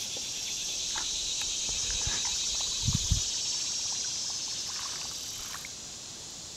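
Steady, high-pitched buzzing chorus of insects, swelling slightly and easing off near the end, with a few faint clicks and a soft low bump about three seconds in.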